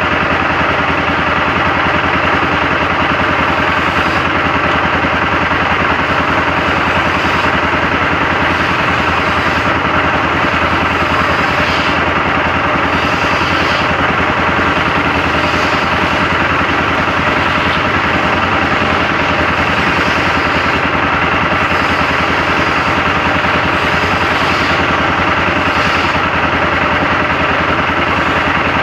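An engine idling steadily, with rain falling on the road.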